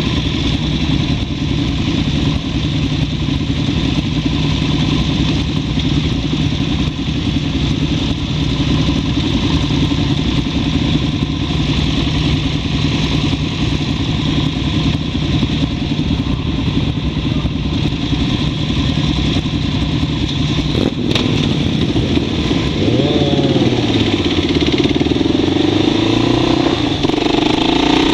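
Motorcycle engines idling steadily while stopped in traffic. About three-quarters of the way through, the engine note rises and falls as the bike pulls away.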